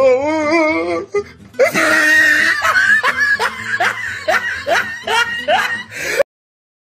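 Laughter over music: a wavering, drawn-out laugh, then a string of short rising 'ha' laughs about twice a second. Everything cuts off abruptly near the end, leaving silence.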